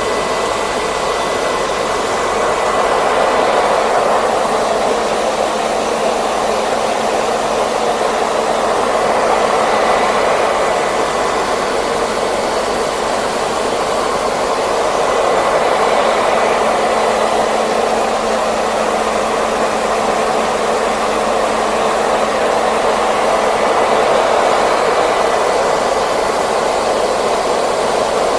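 Hair dryer running continuously: a steady rush of blown air with a thin motor whine, swelling and easing slightly every several seconds.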